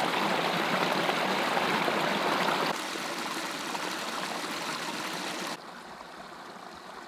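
Small forest brook rushing and splashing over rocks and roots, a steady hiss of water. It drops suddenly in loudness twice, about two and three quarter seconds and five and a half seconds in, quieter each time.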